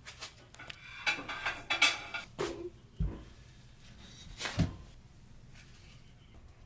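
Metal muffin tin handled and set down on a kitchen counter: a run of clattering and rattling knocks, a dull thud about three seconds in, and one more knock a little later.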